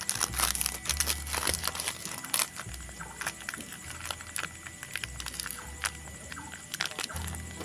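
Plastic snack wrapper crinkling and crackling as a Momogi corn stick is unwrapped and broken up by hand, with many sharp, irregular crackles.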